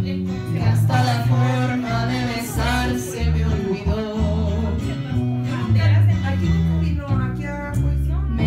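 Latin music with plucked guitar over a steady, stepping bass line.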